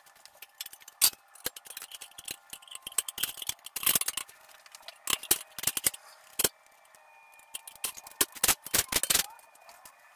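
Irregular sharp metallic clicks and clinks of hand tools working on the underside of an engine block, coming in clusters with short pauses between them.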